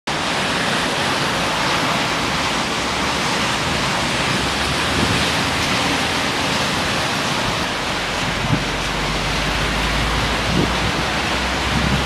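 Typhoon storm: a steady rushing hiss of heavy rain and wind. A low rumble joins about halfway through, with a couple of soft knocks.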